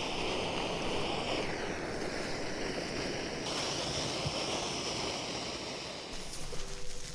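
Primus Express Spider II gas canister stove burning, a steady rushing hiss of the burner flame.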